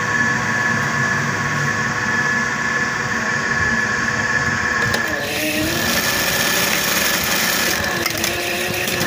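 Juki industrial buttonhole machine, its motor humming steadily. About five seconds in, the machine runs through a stitching cycle for about three seconds, sewing a test buttonhole.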